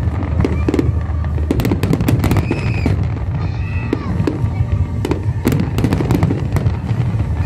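Fireworks display: aerial shells bursting in rapid, irregular, overlapping bangs and crackles over a continuous low rumble, with music playing underneath.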